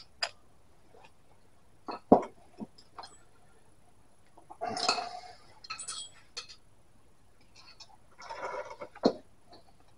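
Metal clinks and taps of a spanner and nut being worked on a front shock absorber's mounting stud. The loudest is a sharp clink about two seconds in, with short scraping scuffs about five seconds in and again near the end.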